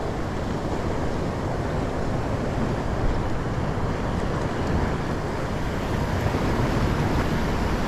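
Steady rushing of wind on the microphone mixed with sea swell washing against rocks.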